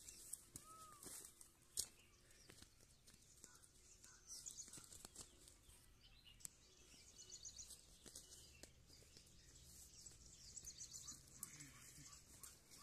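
Faint outdoor quiet with small birds chirping now and then in short high runs. A few soft knocks in the first two seconds come from a hoe scooping soil into a basket.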